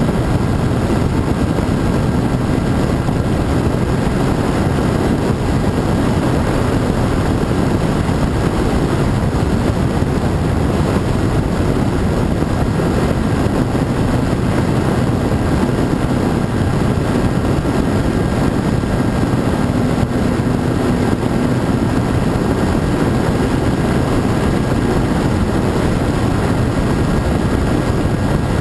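Radio-controlled model airplane in flight: its motor and propeller run steadily under a loud rush of air noise, with no clear change in pitch.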